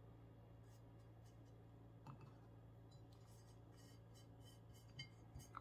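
Near silence: room tone with a low steady hum and a few faint soft taps.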